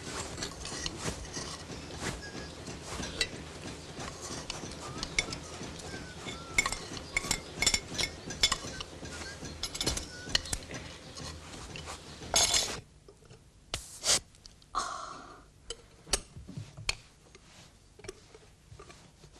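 Scattered clinks and knocks of household items being handled, over a steady background hum. About thirteen seconds in the background drops away, and a few sharper knocks follow.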